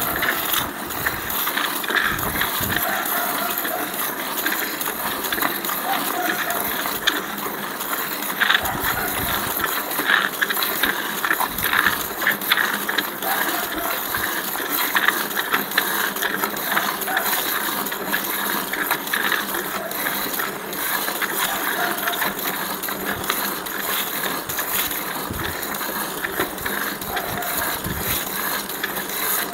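Milking machine running: a steady mechanical hiss with many small clicks and rattles throughout.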